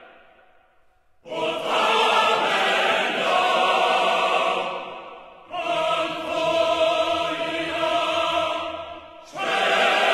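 Slow background music of sustained chords that swell in long phrases of a few seconds each, fading down between them; the first phrase comes in about a second in.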